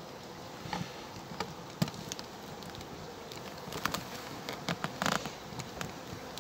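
Honeybees buzzing steadily around the hive, with scattered small clicks and a brief rustle about five seconds in.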